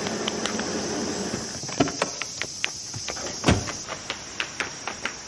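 A car rolling to a stop on its tyres, then quick hard-soled footsteps running down stone steps: sharp, uneven clicks a few per second with one heavier thud about midway. A steady high drone of insects runs underneath.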